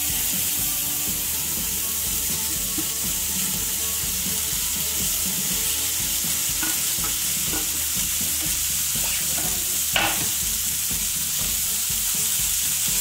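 Chopped spinach sizzling in hot oil in an iron kadai, a steady hiss. A metal spoon clinks against the pan a few times as it is stirred, loudest about ten seconds in.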